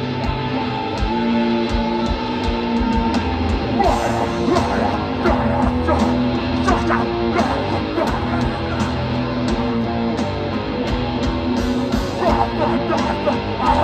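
A live hardcore punk band playing loud, with electric guitars over a full band.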